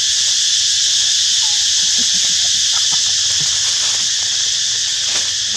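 Loud, steady high-pitched insect chorus, a constant buzzing hiss, with a few faint rustles and clicks near the end.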